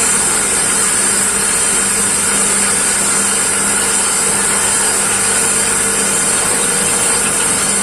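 Homemade electric sponge-grating machine running steadily, a constant motor hum with a hiss over it, used for cutting a grater pattern into EVA foam sandal soles.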